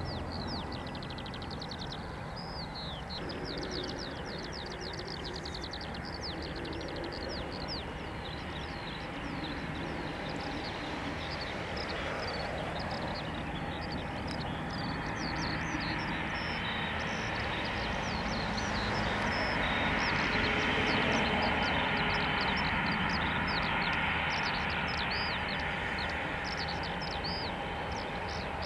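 Airliner engines whining steadily, with a broad roar that swells about two-thirds of the way through, under many quick, high, falling bird chirps.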